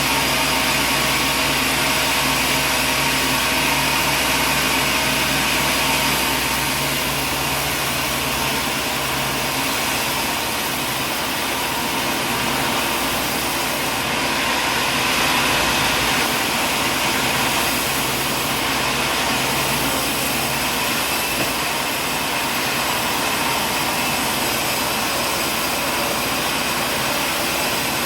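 Sawmill machinery running steadily: a continuous engine-like hum with a whine, its low hum easing slightly about ten seconds in.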